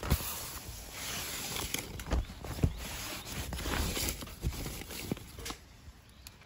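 Nylon tent fabric and camping gear rustling as they are handled, with irregular soft knocks and bumps that die away near the end.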